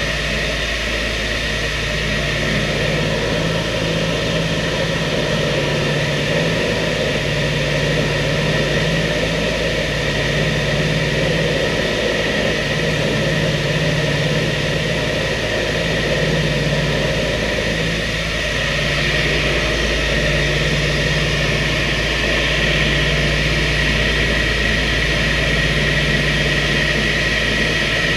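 B-25 Mitchell bomber's Wright R-2600 radial engines and propellers droning steadily in cruise, heard from inside the fuselage. The low hum swells and fades every couple of seconds.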